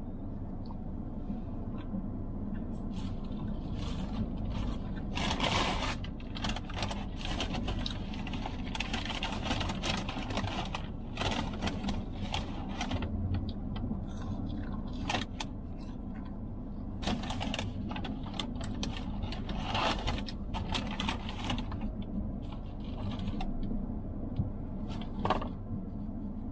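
Close-up chewing and mouth noises of a man eating a soft burger, coming in several spells of clicks and smacks. Under them runs the steady low rumble of the parked car.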